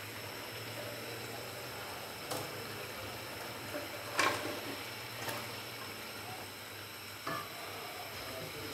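Boiled beef shank pieces and marrow bones being scraped off a plate with a silicone spatula into a pot of masala: a few soft knocks and scrapes, the clearest about four seconds in, over a faint steady hiss of the masala cooking.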